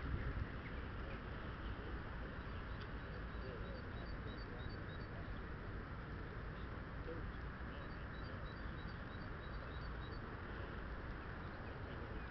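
Steady outdoor background noise, with a small bird singing two runs of quick, high repeated notes, about three seconds in and again about eight seconds in, each lasting about two seconds.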